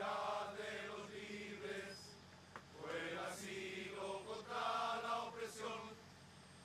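Crowd of voices chanting together in unison, in drawn-out phrases with short breaks between them.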